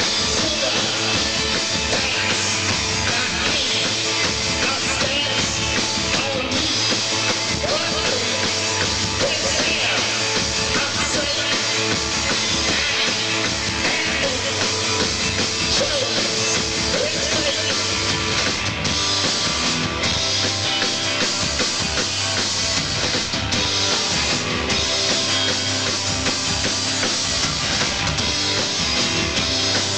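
Rock band playing a song live at full volume, drum kit driving a steady beat under the band.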